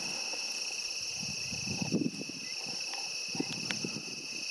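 Steady chirring of crickets, two even high-pitched bands, with irregular low rustling and thumps of someone moving through dry marsh grass.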